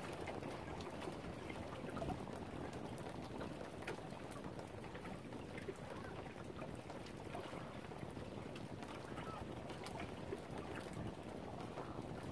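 Lakeside ambience: small waves lapping and splashing at the lough shore in the wind, with a few faint bird calls.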